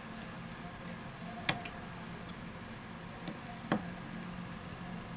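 A few light, sharp clicks and ticks from a precision screwdriver on the small screws and metal shield of an opened smartphone, the loudest about one and a half seconds in, with a steady low hum underneath.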